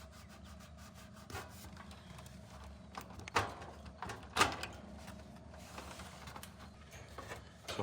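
Hand work on electrical wire: a few faint rubs and sharp clicks, the two loudest about three and a half and four and a half seconds in, as the wire is prepped.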